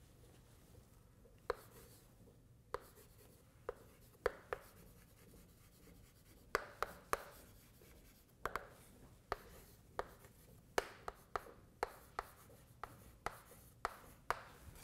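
Chalk writing on a blackboard: a string of sharp, irregular taps and short scratches as the chalk strikes and drags across the board.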